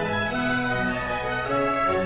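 Orchestral music with bowed strings playing a slow melody of long held notes.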